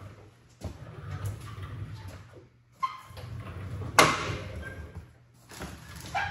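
A 1971 Skiroule RT500 snowmobile dragged out across a concrete floor in three tugs, scraping and rumbling. A sharp bang about four seconds in is the loudest sound.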